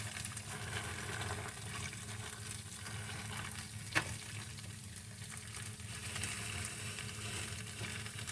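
Baked tofu and shredded carrots frying in an oiled pan, a steady sizzle, with one sharp click about four seconds in.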